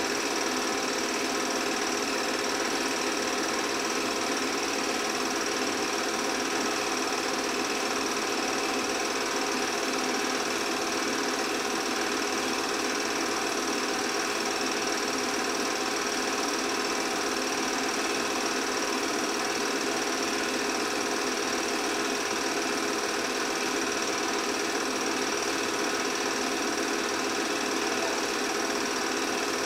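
8 mm film projector running, a steady mechanical whir that does not change.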